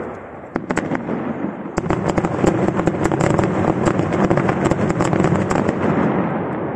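Aerial fireworks going off: a few separate bangs, then from about two seconds in a dense, rapid string of cracks and reports that thins and fades near the end.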